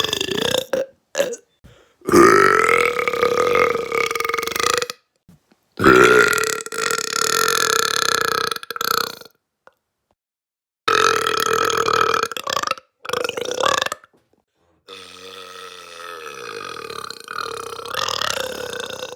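A person burping deliberately, as loud and as long as possible: a string of long drawn-out belches lasting about three to four seconds each, with short pauses between them. The last burp is quieter and falls in pitch.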